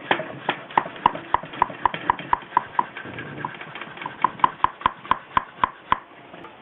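Mini bicycle hand pump with a screw-on hose being worked fast to inflate a new inner tube, a sharp click on each stroke, about four a second. The pumping breaks off briefly about halfway through.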